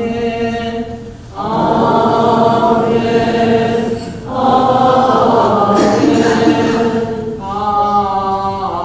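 Slow liturgical chant: a man sings long held notes, and in two longer stretches in the middle many voices sing together.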